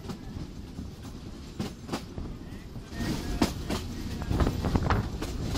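Bangladesh Railway mail train running on the rails: a low rumble with irregular wheel clatter and knocks, growing louder about three seconds in.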